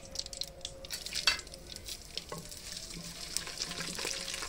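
Whole spices sizzling in hot oil in a clay pot, stirred with a wooden spoon that clicks and scrapes against the pot, with one sharper clack about a second in.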